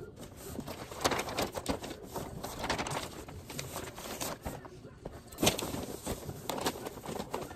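Christmas wrapping paper rustling and crinkling as it is unrolled and folded around a gift, in quick irregular crackles, with a louder crackle about five and a half seconds in.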